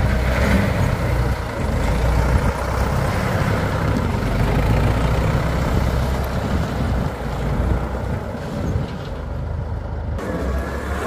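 Backhoe loader's diesel engine running steadily under load as the machine pushes and spreads gravel with its front loader bucket.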